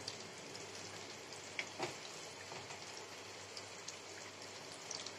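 Momos deep-frying in hot oil over a medium gas flame: a steady, rain-like sizzle full of fine crackles, with a few sharper pops.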